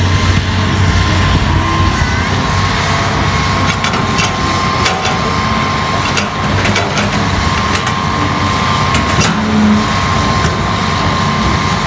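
Hitachi crawler excavator's diesel engine running steadily as the machine slews and works its arm, with a thin high whine running through it and several sharp knocks in the middle.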